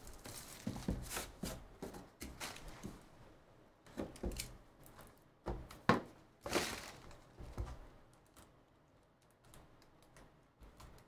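Hands handling sealed trading-card boxes on a table: irregular knocks and taps as boxes are moved and set down, with scraping and rustling, then light ticking as a blade cuts the seal on a box near the end.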